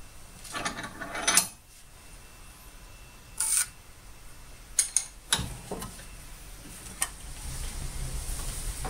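Tools and materials being handled on a workbench: a short rattling scrape ending in a sharp click, then a brief scrape and several separate sharp metallic clicks and knocks.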